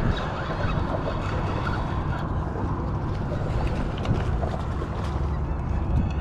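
Wind buffeting the microphone: a steady low rumble with no distinct events.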